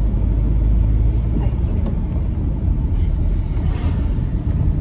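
Motorcycle riding along a winding mountain road: a steady, even engine and road rumble with no change in pace.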